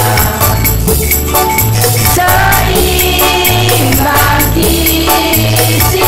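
A group of women singing together in unison over a backing track with a steady bass beat and regular percussion.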